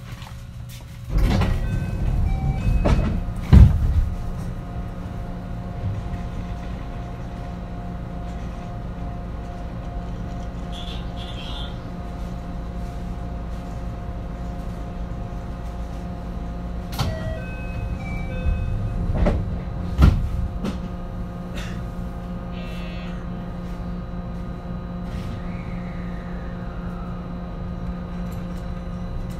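A JR West 223 series 2000 electric train standing at a platform, its onboard equipment giving a steady hum with several fixed tones. Louder knocks and clunks come a few seconds in and again about two-thirds of the way through, along with a few short high beeps.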